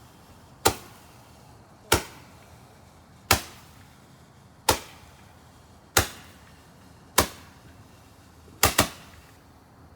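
Consumer aerial fireworks firing one shot after another, with sharp reports about every 1.3 seconds: six single shots, then a quick double shot near the end.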